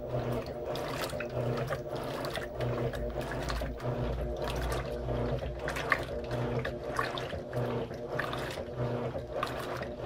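Electrolux LM13Q top-load washing machine churning a load of curtains in soapy water: water sloshing over a low motor hum that pulses about once a second.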